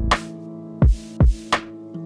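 Background music: a beat of sharp drum hits over held bass and keyboard notes.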